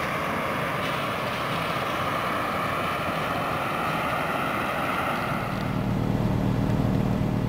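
Steady outdoor rush of wind on the microphone while a lake freighter passes. About five and a half seconds in, this gives way to the low, even hum of an idling car engine heard from inside the car.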